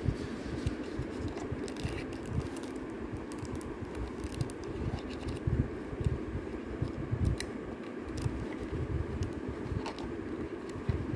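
Fingers handling and opening a small cardboard box of fountain pen ink cartridges: irregular light clicks, taps and scratches over a steady low hum.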